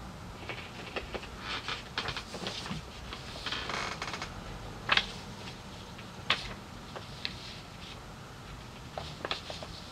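Paper rustling and handling noise as a read-along booklet is picked up and its pages held open, with scattered sharp clicks, two louder ones about five and six seconds in.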